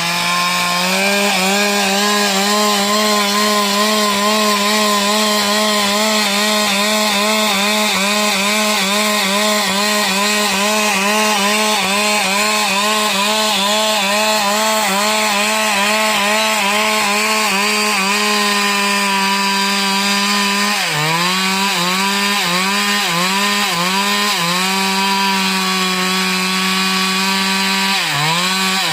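Stihl MS 382 two-stroke chainsaw running at high revs, cutting into wood. The engine note holds steady for most of the time, then dips briefly several times in quick succession about twenty-one seconds in and again near the end as the chain takes the load.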